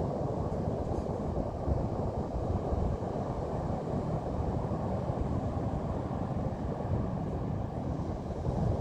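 Pacific Ocean surf on the beach: a steady, low rush of waves.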